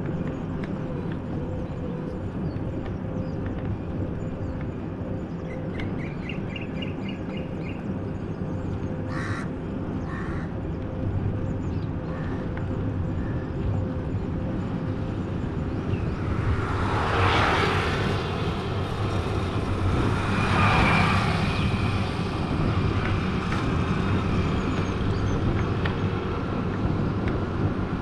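Steady rumble of road and wind noise from a moving vehicle. Birds call over it: a quick run of chirps about six seconds in, then two short harsh calls. Later come two louder swells of traffic noise a few seconds apart.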